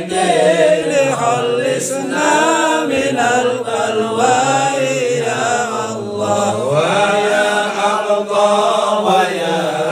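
A group of men chanting a sholawat together, unaccompanied, in long wavering melodic lines.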